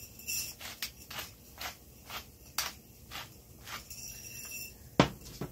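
Hand-twisted pepper mill grinding black peppercorns: about ten short crunching strokes, roughly two a second, then a single sharp knock near the end.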